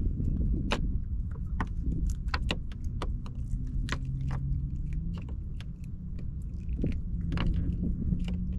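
Irregular sharp clicks and light metallic rattling as a shellcracker is unhooked by hand from a crappie rig with its hooks and weights, over a steady low rumble.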